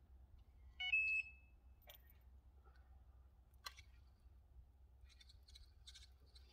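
A single short electronic beep, stepping slightly down in pitch, from an angler's bite alarm as a rod is lifted from its rest. It is followed by two sharp clicks.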